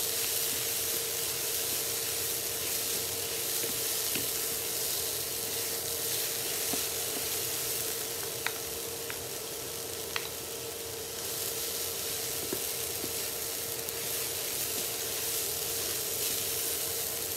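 Cauliflower rice sizzling in a nonstick frying pan as it is stir-fried with two wooden spatulas, with a few light taps of the spatulas on the pan about halfway through. A steady tone runs underneath.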